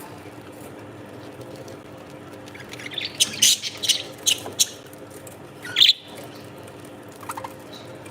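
Small parrot calling: a quick run of sharp, high chirps about three seconds in, then one louder squawk about a second later, and a few faint chirps near the end. A low steady hum sits underneath.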